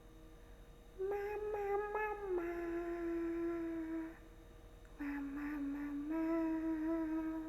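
A young woman's voice humming wordless, drawn-out cooing tones in two long phrases, each stepping down in pitch, with a short pause between them. These are tipsy vocal noises made while drinking.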